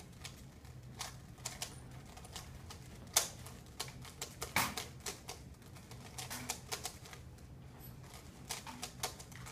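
Rubik's cube being turned by hand during a speedsolve: rapid, irregular plastic clicks and clacks of the layers snapping round, with two sharper clacks about three and four and a half seconds in.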